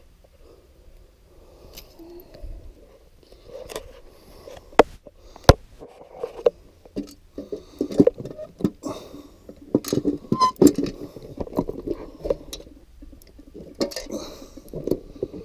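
Stanley hand rivet gun being worked on a pop rivet against a steel feeder barrel: a run of metallic clicks and clacks from the gun's jaws and handles, with two sharp snaps about five seconds in.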